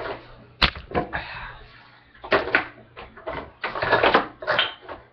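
Kitchen handling sounds: a sharp click about half a second in, then irregular clattering and scraping.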